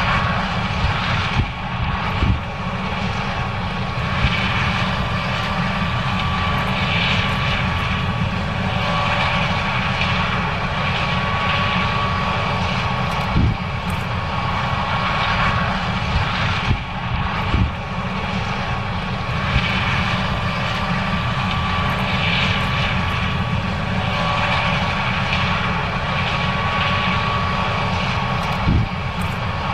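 John Deere S770 combine running steadily while harvesting corn: a heavy drone with a thin, constant high whine over it, and a few short knocks along the way.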